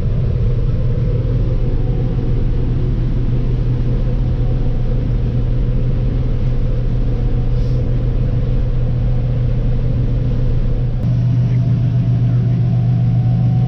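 Farm machinery engine running steadily, a low, even drone. Its tone shifts slightly about eleven seconds in.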